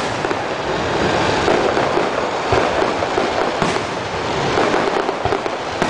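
Fireworks display: a dense, continuous crackle of aerial shells bursting, with a few sharper booms about two and a half, three and a half, and five seconds in.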